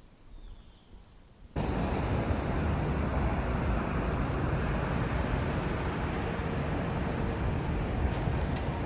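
Steady outdoor rushing noise, heaviest in the low end, that comes in suddenly about a second and a half in, after a faint low rumble.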